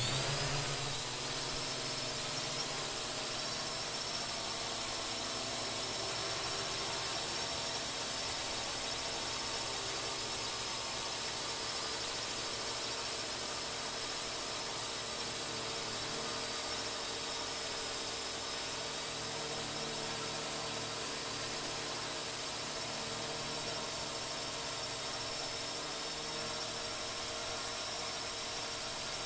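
Quadcopter drone's electric motors and propellers whining steadily in flight: several held tones over a high hiss.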